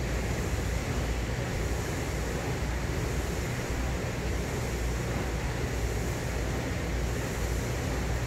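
Ski ergometer's air-resistance flywheel fan whooshing steadily as it is kept spinning by repeated double-pole pulls on the handles.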